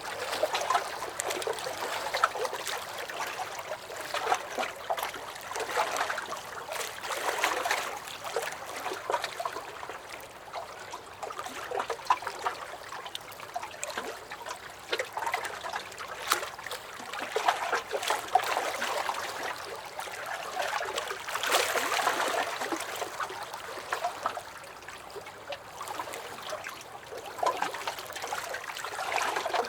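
Small lake waves lapping and sloshing against a dock, an uneven run of little splashes and gurgles that swell and ease every second or two.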